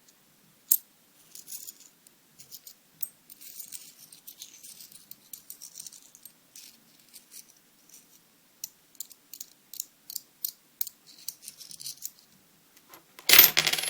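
Coins being handled and sorted, with scattered sharp metallic clicks and clinks, then a loud jangling rattle of coins about 13 seconds in.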